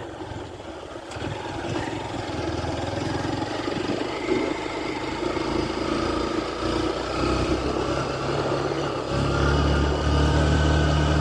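A vehicle's engine running steadily, its hum getting louder from about nine seconds in.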